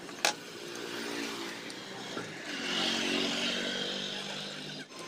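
An engine running steadily, with one sharp click just after the start; the engine sound cuts off suddenly near the end.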